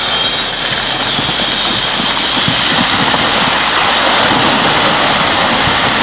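Rockslide: a boulder and loose earth tumbling down a steep slope into a river, a loud continuous rushing rumble with scattered thuds around the middle.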